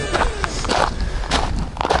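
Footsteps on loose gravel and dirt, uneven, about two steps a second. Right at the start, the tail of guitar music slides down in pitch and stops.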